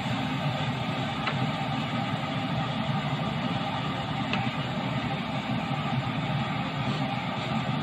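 Rice mixture being stirred and turned with a wooden spatula in a non-stick wok, with a few light taps of the spatula, over a steady hum and hiss.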